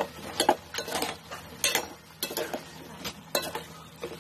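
A spoon clinking and scraping against a metal rice-cooker pot as chunks of raw papaya and pork are stirred, in irregular knocks.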